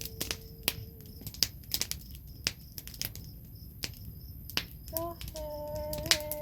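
Wood fire crackling with irregular sharp pops, while a woman hums or sings a long held note that fades about a second in and starts another held note about five seconds in.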